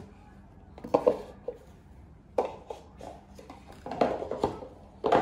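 Speed-cube packaging being handled and unboxed: a string of irregular knocks, clicks and rustles as the boxes are picked up, opened and set down.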